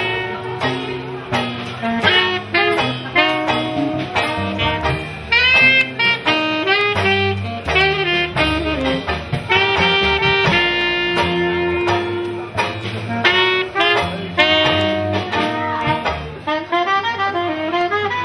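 Jazz band playing: a horn carries a quick melody with scooped, bending notes over changing bass notes and drums with cymbals.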